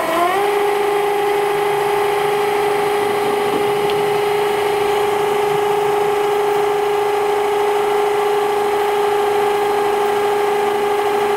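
Mini lathe running while centre-drilling the end of a spinning brass bar: the motor whine rises in pitch as the spindle comes up to speed right at the start, then holds a steady whine.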